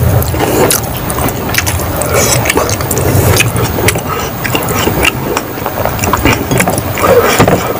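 Close-miked chewing and lip-smacking as a mouthful of egg curry is eaten by hand, heard as a quick, irregular run of clicks.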